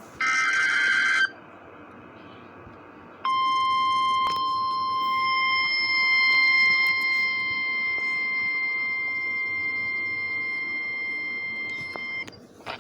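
The tail of an EAS/SAME digital header burst, a raspy two-tone data warble about a second long, then a few seconds of radio hiss. Next comes the NOAA Weather Radio 1050 Hz warning alarm tone, one steady high beep lasting about nine seconds. It signals that a warning message follows.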